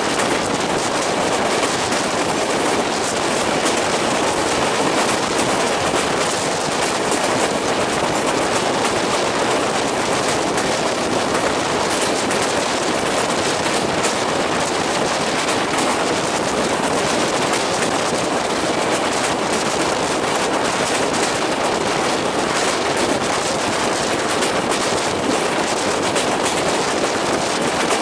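A train running at speed, heard from on board an LHB passenger coach: a steady rush of wheel and rail noise with a dense, fast rattle running through it.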